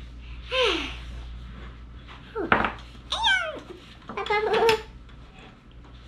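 A young girl's voice making three short meow-like cries, the first two sliding down in pitch. A light knock comes between them, about halfway through.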